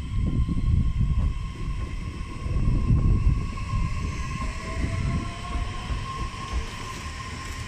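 JR E131 series electric train running past close by along the platform, its wheels rumbling on the rails, loudest about a third of the way in. A faint rising whine sounds through the middle as it goes by.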